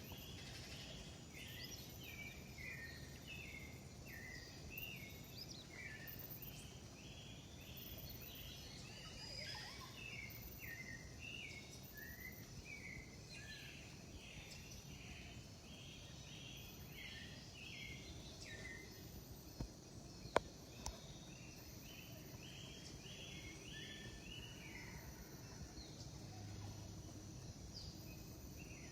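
Rainforest ambience: runs of short repeated chirping calls from birds or frogs over a steady high insect drone. A single sharp click sounds about twenty seconds in.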